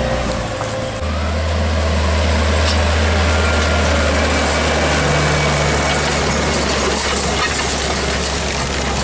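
Case IH CVX 160 tractor engine running steadily under load while pulling a Horsch disc harrow through dry stubble, with the even hiss of the discs working the soil. The engine's low hum shifts in pitch about a second in.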